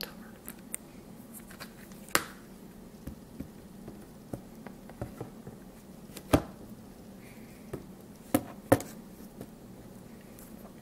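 Plastic DVD cases being handled and slid into and out of a DVD box set. Scattered soft taps and a few sharp clicks, the loudest about two and six seconds in, and a quick pair of clicks near eight and a half seconds.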